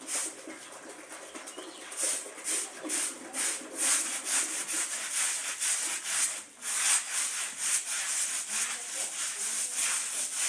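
A wet, soapy carpet being scrubbed by hand in quick, scratchy back-and-forth strokes, about two to three a second, picking up pace about two seconds in.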